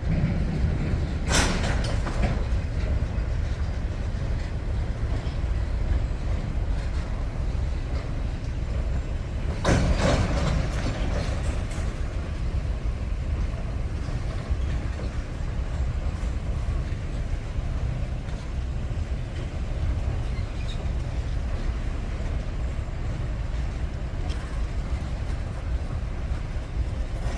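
Heavy machinery engines running with a steady low rumble, with two brief louder bursts, one about a second in and one about ten seconds in.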